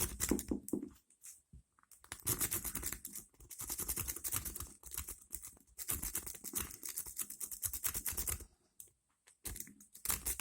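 A metal rake pick scrubbed rapidly in and out of the keyway of an ASSA Rune 2 padlock, making a fast scratchy clicking across the pins. It comes in long runs with a short pause near the end.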